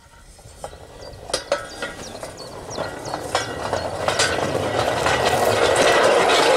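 Home-made steel railway wheelset with tapered treads rolling along home-made steel narrow-gauge rails on straight track: a rolling rumble that grows steadily louder, with scattered sharp clinks and ticks over it.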